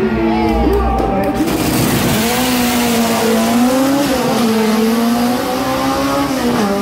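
Two drag cars launching off the start line and accelerating down the strip at full throttle. Their engines are revving, and from about a second and a half in a loud, rushing wall of engine and exhaust noise takes over, its pitch wavering up and down.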